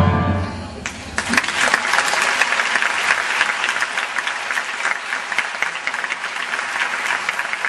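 A choir's last chord dies away in the first second, then an audience applauds steadily.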